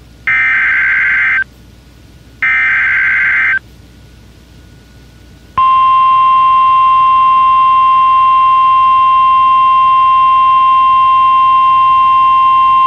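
NOAA Weather Radio emergency alert: two short bursts of SAME digital header data, each about a second long, warble about a second apart; after a pause of about two seconds the steady 1050 Hz warning alarm tone starts and holds. The header and tone are the signal that a warning, here a flash flood warning, is about to be broadcast.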